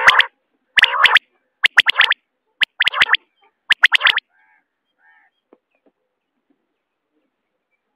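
Common quail calling: five short calls about a second apart, stopping about four seconds in, with a couple of faint calls just after.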